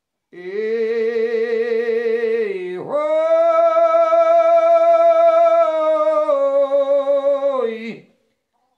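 A man singing unaccompanied in long, wordless held notes with a wavering pitch, in two phrases, the second higher and longer, each falling away at its end: an aboio, the northeastern Brazilian cowherd's call sung to open a toada.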